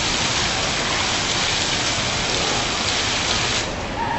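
Water falling from a digital water curtain (graphical waterfall) and splashing down, a steady rain-like hiss. The hiss cuts off sharply about three and a half seconds in, as the curtain stops releasing water.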